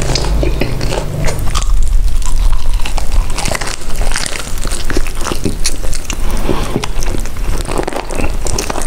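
Close-miked eating of crunchy food: repeated bites and chewing, with dense, irregular crunching and crackling.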